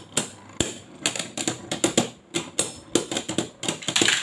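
Two Beyblade spinning tops, Astral Spriggan and Dynamite Belial, clacking against each other as they spin in a clear plastic stadium. The clicks are quick and irregular, several a second, with a louder scraping burst near the end.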